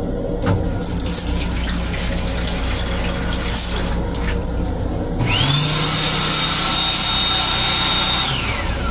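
Railcar restroom sink's faucet and its water pump running: about five seconds in, a pump whine rises quickly and holds steady over the hiss of running water, then falls away near the end. A steady low hum of the moving train runs underneath.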